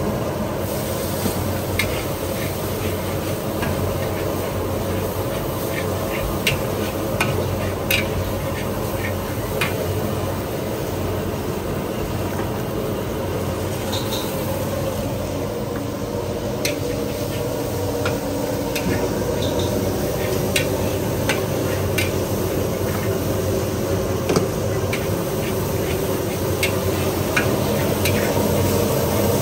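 Metal spatula scraping and clacking irregularly against a large wok as noodles are stir-fried, over a steady sizzle of frying.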